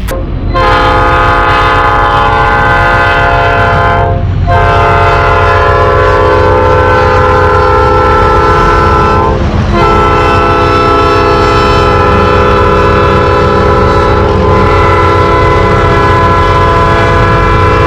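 Train horn sounding in long, steady blasts with short breaks about every five seconds, over the low rumble of the passing train.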